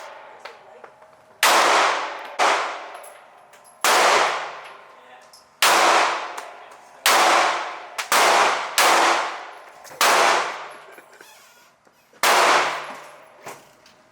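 A string of gunshots from a firearm at a shooting range, about eight loud reports one to two seconds apart with a couple of fainter ones between. Each shot is followed by a long echoing decay.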